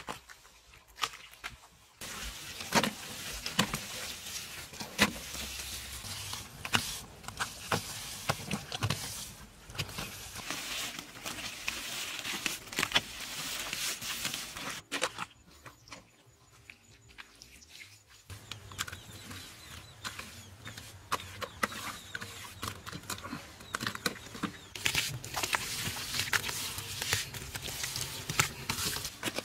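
A trowel and hands scraping and slapping wet mortar as it is spread and smoothed over a floor and wall, with many short sharp clicks. There is a quieter pause of a few seconds about halfway through.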